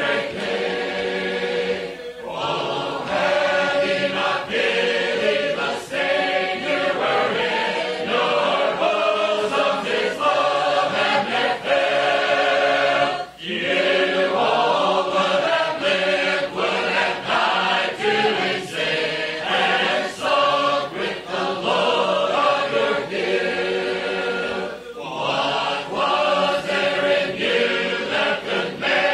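A choir singing a song a cappella, in phrases with short breaks between lines.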